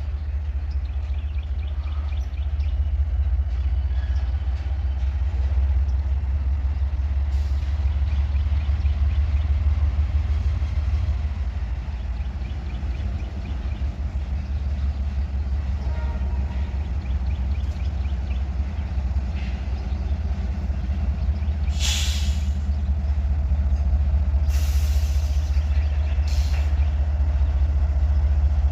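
Diesel locomotive of a local freight train running with a steady low rumble, with short blasts of air hissing from the air brakes about 22 s in and again around 25 s.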